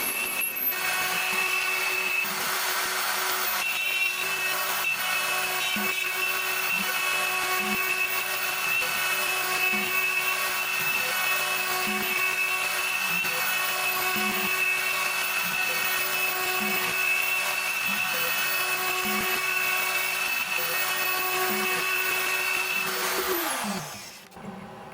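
Sorotec Basic Line 1005 CNC router's spindle running steadily with a high whine while milling wood for the inlay plug; a little before the end the spindle winds down, its pitch falling and the sound dropping away.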